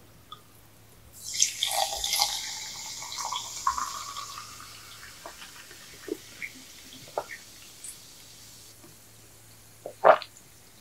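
Close-miked mouth sounds of eating a spoonful of ice cream cake: a dense wet crackle for several seconds that fades, then a few scattered clicks and a sharper click near the end.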